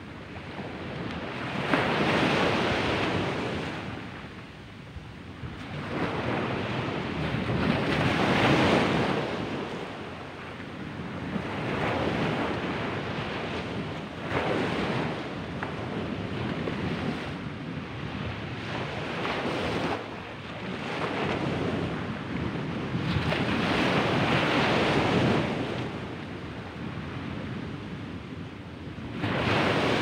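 Small waves breaking at the shore of a sandy beach and washing up and back over the sand. The surf rises and falls every few seconds as each wave comes in.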